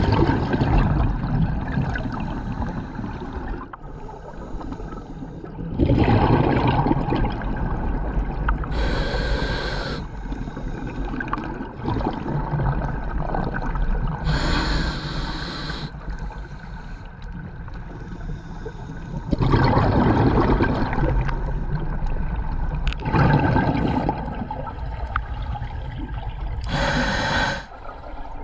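Scuba diver breathing through a regulator underwater, a breath every few seconds: a sharp hiss on each inhale and a burst of bubbles on each exhale.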